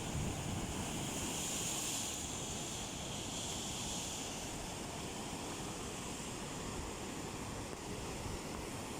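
Sea waves washing in, with a hissing swell about a second in that fades by four seconds, over wind rumbling on the microphone.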